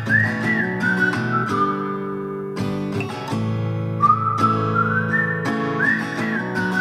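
Background music: strummed acoustic guitar under a whistled melody, the same short tune repeating about every five seconds.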